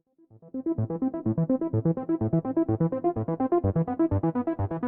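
Background music: a quick, bouncy keyboard tune of short repeated notes over a steady beat.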